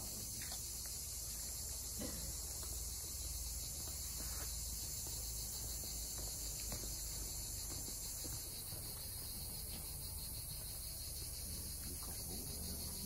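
Steady high-pitched chorus of insects, easing slightly about two-thirds of the way through, over a low steady rumble.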